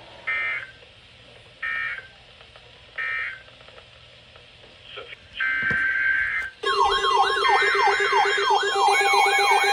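Emergency alert audio: three short digital data bursts of an EAS/NOAA Weather Radio SAME code, then a longer data burst. About two-thirds of the way in, a loud pile of alert tones begins: steady alarm tones with a fast, repeating siren-like warble on top. Several alert receivers are sounding at once for a newly issued severe thunderstorm warning.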